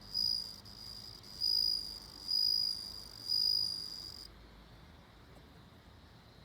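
Bell cricket (suzumushi) singing: a high, ringing trill that swells four times, about a second apart, and stops about four seconds in.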